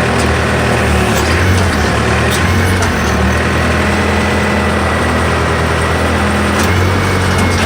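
Backhoe's diesel engine running steadily while the bucket digs, with a faint steady high whine above it and a few sharp knocks about two and seven seconds in.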